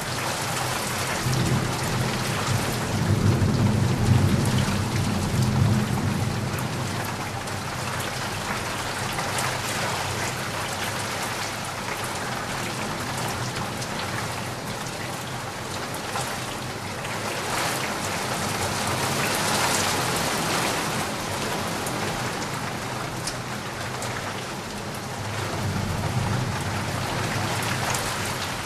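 Heavy rain falling steadily, with a low rumble of thunder in the first few seconds and again near the end.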